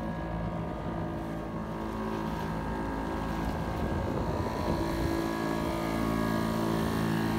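A motorboat's engine running steadily under way, a constant hum with water and wind noise, growing slightly louder.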